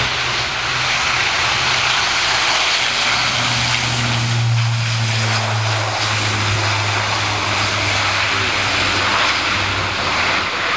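Airbus A400M's four Europrop TP400-D6 turboprops at high power on its takeoff run: a loud, steady roar with a low propeller hum. The hum is strongest as the aircraft passes about four to five seconds in, then sits a little lower in pitch.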